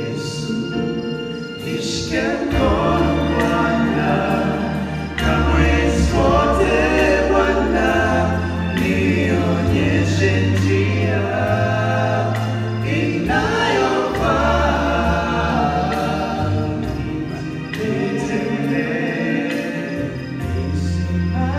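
Male vocal trio singing a gospel song in harmony into microphones, with sustained low notes under the voices.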